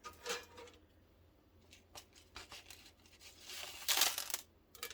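Breaded chicken pieces being set into an air fryer basket: scattered soft scrapes and rustles, with a louder rustle about four seconds in.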